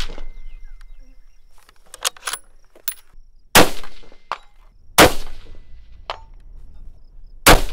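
Three bolt-action rifle shots at a range: one about three and a half seconds in, one about a second and a half later, and a third about two and a half seconds after that. Each has a sharp crack and a trailing echo. Lighter metallic clicks come about two to three seconds in.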